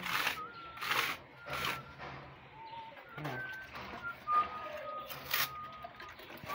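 Brief rasping scrapes of a painter's hand tool working textured paint on a rough wall and in the paint bucket, about five separate strokes. Thin high whistling notes run underneath, changing pitch now and then.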